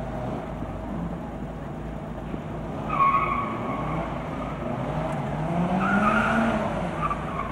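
Classic Mini's engine running under hard driving on a tarmac and gravel test area, with its tyres squealing briefly about three seconds in and again around six seconds, as the engine rises in pitch.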